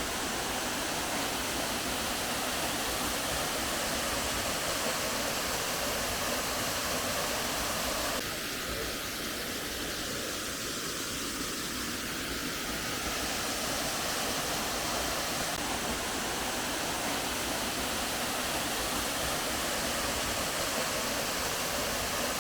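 Waterfall rushing: a steady, even wash of falling water, with a slight change in tone about eight seconds in.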